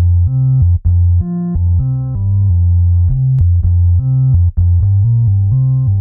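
Electronic intro music: a synthesizer with a heavy bass line playing short held notes and chords that change about every half second.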